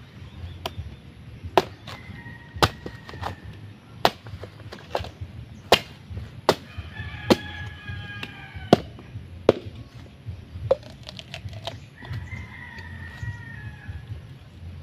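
Machete chopping into the husk of a green young coconut, more than a dozen sharp strikes at an uneven pace that stop a little before the end, cutting it open to drink. A rooster crows about halfway through and again near the end.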